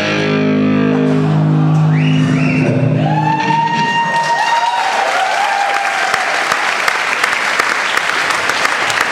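A band's final held chord with guitar dies away about three seconds in, and an audience breaks into applause with cheering that carries on steadily.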